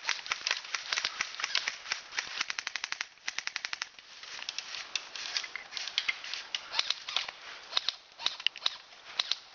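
Airsoft guns firing: scattered single shots, with a rapid full-auto burst of about a dozen shots a little over three seconds in.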